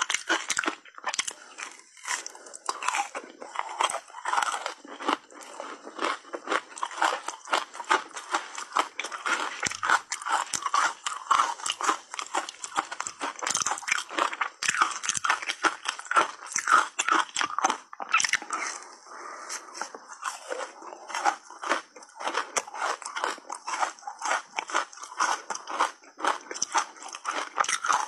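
Close-miked biting and chewing of a block of reshaped ice coated in matcha powder: a dense, continuous run of sharp crunches and crackles as the ice breaks between the teeth.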